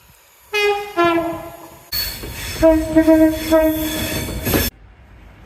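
Train horns sounding: a two-note blast, a higher note then a lower one. Then, after an abrupt cut, a louder horn over the noise of a passing train swells several times before cutting off abruptly near the end.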